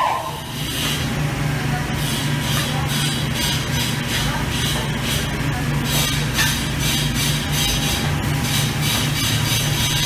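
Welding arc of an automatic pipe-welding system laying the fill and capping passes on a pipeline joint. A high hiss and crackle pulses in a quick, even rhythm over a steady low machinery hum.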